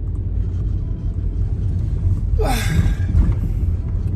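Steady low road rumble inside a moving car. About two and a half seconds in, a brief whoosh falls in pitch.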